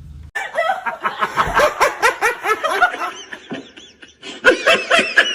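A person laughing: a quick run of short, pitched bursts of laughter, with a louder burst near the end.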